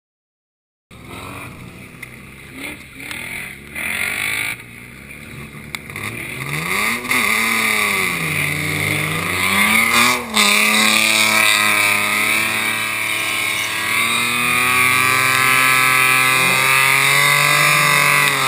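BMW E36 328i's straight-six engine starts about a second in, revving up and down a few times. From about twelve seconds in it is held at steady high revs as the rear tyres spin in a smoking burnout.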